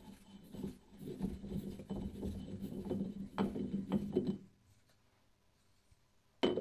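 Hands turning and handling a knurled steel shaft held on a center in the lathe chuck: faint, irregular rubbing and light metal knocks for about four seconds, then a short lull and one sharp click near the end.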